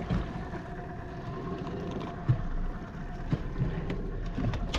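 Steady wind and boat noise on the microphone, broken by a few sharp knocks while a just-landed fish is unhooked and handled by hand; the loudest knock comes about two seconds in.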